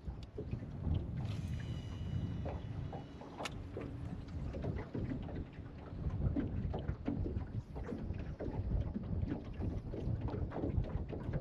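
Wind buffeting the microphone and water slapping against the hull of a small aluminum boat, with scattered small knocks and clicks.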